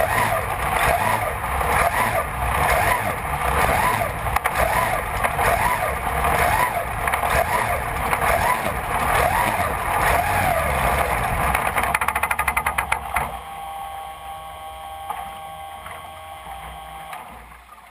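Supercharged racing boat engine running hard, with wind and water rushing past the deck-mounted microphone. About 12 seconds in it breaks into a rapid run of crackling firing pulses, then drops to a much quieter, steady idle as the boat comes off the throttle.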